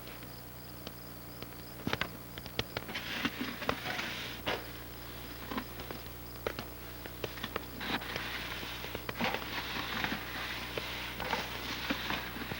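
Dry wild rice rustling and scraping in a tub, with irregular sharp clicks and stretches of hissing rustle, over a steady low hum.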